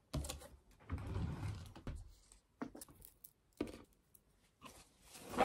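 Handling noises: irregular rustling with soft knocks and a few sharp clicks as small things are handled at a table.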